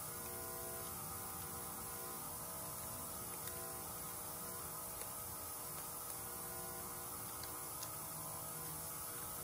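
Steady electrical hum with a few faint, light clicks scattered through it, from a small driver turning a 5.5 mm sensor bolt by hand.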